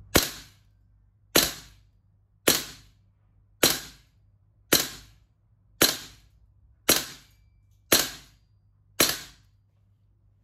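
VFC HK416D gas blowback airsoft rifle running on green gas, firing nine single shots at about one a second; each shot is a sharp crack.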